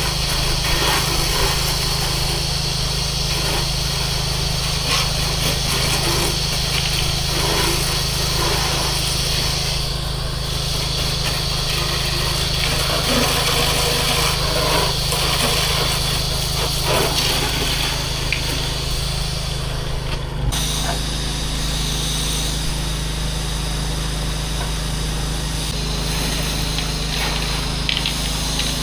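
Gas-engine pressure washer running steadily, with the hiss of the high-pressure water spray over it. The sound changes abruptly about twenty seconds in.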